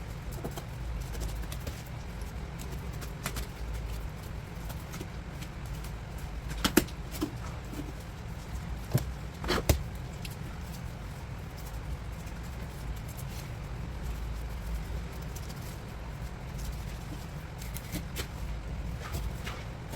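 Knife work on a sea bass on a cutting board: scattered light taps and scrapes, with a few sharp knocks about 7 and 10 seconds in, over a steady low hum.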